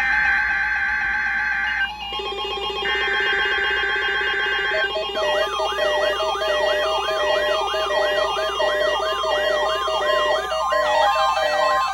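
Emergency Alert System test signal: buzzy digital SAME header tones in bursts with a short gap. About five seconds in it gives way to a fast, repeating rising-and-falling electronic siren-like alarm tone.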